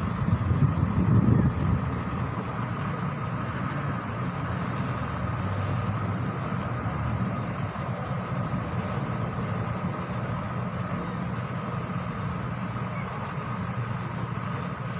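Steady low background rumble with a constant hum, the kind of noise that traffic or a running machine makes, louder in uneven surges during the first two seconds.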